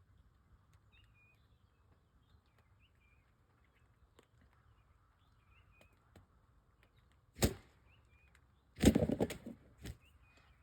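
Faint songbird chirps over a steady low hiss, broken by a sudden sharp noise about seven seconds in and a longer, rough burst of noise about a second and a half later.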